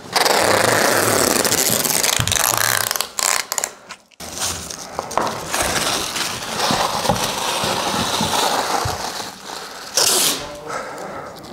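Plastic masking sheeting being pulled out and handled, a loud continuous crinkling rustle, with a brief break about four seconds in and a sharper rustle near the end.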